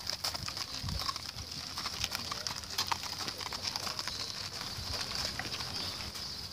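Haflinger mare's hooves and the wooden cart's iron-rimmed wheels crunching and clopping on gravel as the horse-drawn cart moves away, with a steady high-pitched hiss underneath.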